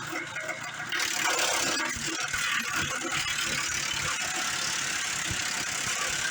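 Bandsaw sawmill at work, with a sudden rise about a second in to a steady sawing hiss as the blade cuts into the eastern red cedar log.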